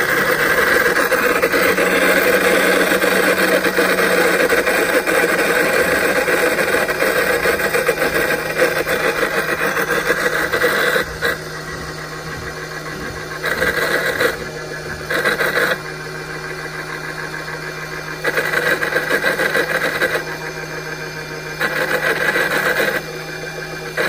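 Rotimatic roti maker's kneading drive running with the rotator cup removed, making an abnormal noise over a steady hum. The owner traces the noise to the rotator's bearing and motor, the bearing needing grease. The noise is loud for the first half, then comes and goes in louder and quieter stretches while a finger presses on the drive.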